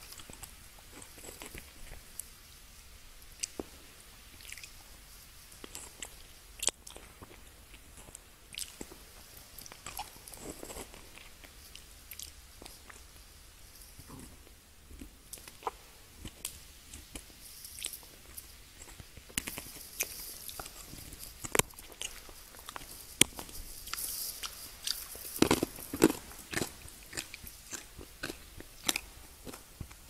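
Mouth sounds of eating a hard-candy lollipop: the candy clicking and crunching against the teeth in many sharp clicks, coming faster and louder in the second half, loudest about three-quarters of the way through.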